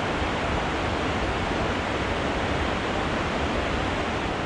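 Glacial meltwater river rushing out from under the glacier's snout: a steady, even rush of water.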